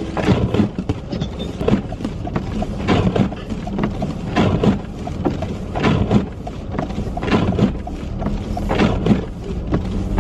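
Car cabin noise while driving: steady engine and road rumble, with windshield wipers swishing about every second and a half.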